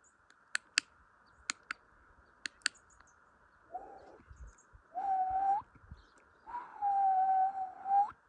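A person clicking their tongue in three quick pairs, then whistling three held notes on one low pitch, each bending upward at the end, the last about a second and a half long.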